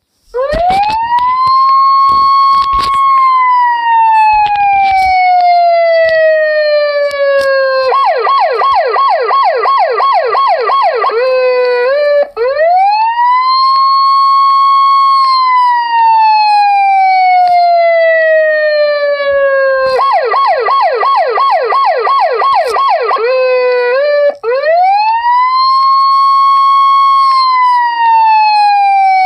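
Icelandic police siren alternating between a slow wail, which rises, holds and then falls away over about eight seconds, and a fast yelp of about three quick up-and-down sweeps a second lasting some three seconds; the wail comes three times and the yelp twice. A few sharp clicks sound in the first few seconds.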